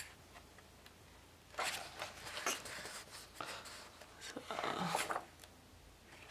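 Paper pages of a coloring book being turned by hand: two stretches of rustling and sliding paper, about two seconds in and again around five seconds, with a few light taps of the pages between.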